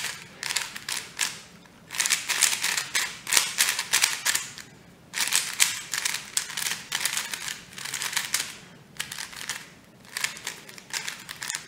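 A brand-new MoFang JiaoShi mini 3x3 speed cube (50 mm) being turned fast by hand: rapid plastic clicking and clacking as the layers snap round. It comes in runs of a few seconds with brief pauses between. The cube is fresh out of the box, and it turns very fast but is a little tight.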